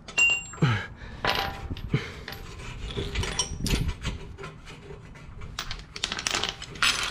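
Metal tools and car parts being handled: a run of short clinks, knocks and clatters, some with a brief metallic ring.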